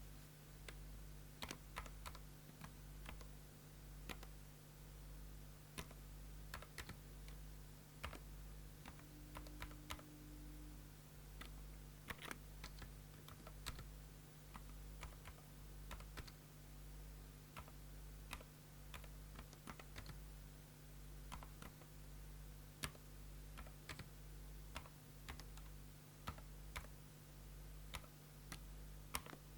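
Typing on a HATOR Rockfall 2 Mecha TKL mechanical keyboard with lubricated HATOR Aurum Milky Way Silent linear switches and PORON dampening: quiet, irregular keystrokes over a steady low hum.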